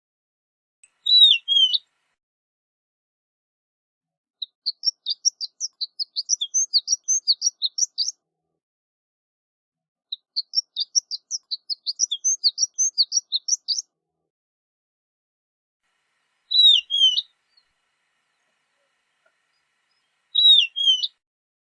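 Horned lark singing: two bouts of rapid, high-pitched notes, each about four seconds long, with a short single call near the start and two more near the end.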